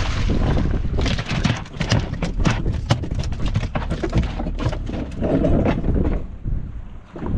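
A freshly landed marine catfish thrashing on a boat deck: a run of irregular slaps and knocks over a steady low hum.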